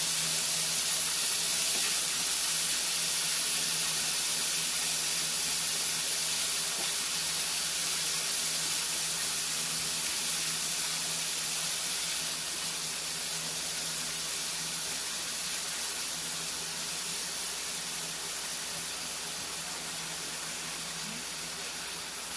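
Ground pork frying in a pan, a steady sizzle that slowly fades, with a faint steady hum underneath.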